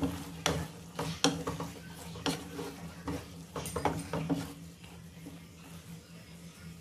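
Wooden spatula stirring chicken and carrots in a large nonstick frying pan, scraping and knocking against the pan again and again, the strokes thinning out about four and a half seconds in.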